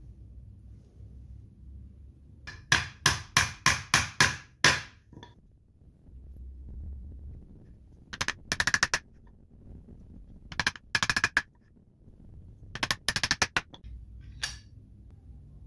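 A small hammer tapping nails into a wooden block in runs of sharp, ringing blows. First comes a steady run of about seven strikes, then three short clusters of quick taps and a single last tap.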